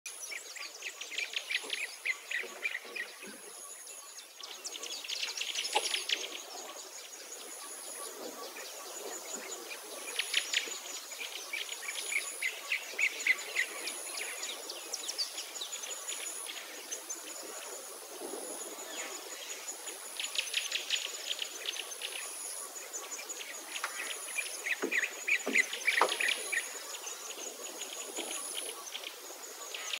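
Outdoor ambience of several birds singing and calling in varied chirps and trills, with an insect giving a short, high-pitched chirp about once a second.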